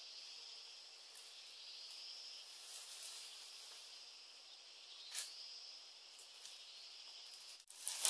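Insects chirring steadily in high-pitched chorus over outdoor background hiss, with a few faint clicks, one sharper about five seconds in.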